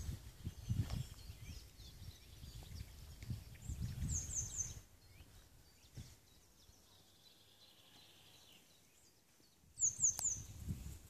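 Outdoor ambience of wind buffeting the microphone in irregular low gusts, with a small bird giving a short call of three quick high notes twice, about four seconds in and near the end. The wind noise drops away for a few seconds in the middle.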